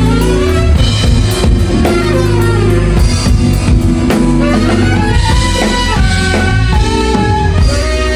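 Live band playing right after a count-in, with drum kit hits, a heavy bass line and held melodic notes over them.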